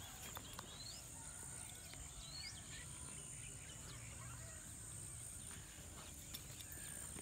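Rural outdoor ambience: birds chirping in short rising calls, several in the first few seconds, over a steady high-pitched insect drone.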